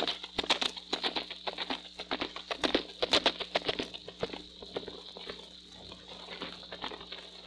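Horse hoofbeats played as a radio sound effect, in quick galloping groups of clops that fade away over the last few seconds. Under them is the steady hum and hiss of an old acetate disc recording.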